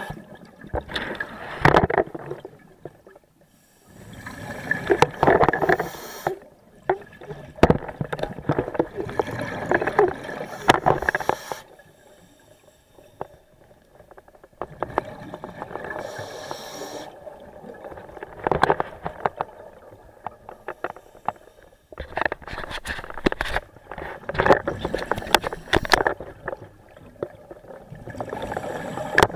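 Scuba diver breathing through a regulator, with exhaled bubbles gurgling in bursts every few seconds. There is a longer quiet stretch with a brief hiss in the middle.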